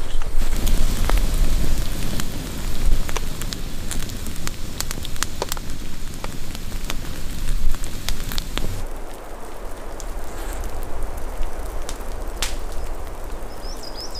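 Wood campfire crackling with rain falling: a steady hiss dotted with sharp pops and snaps. About nine seconds in, the sound thins and the deeper part drops away.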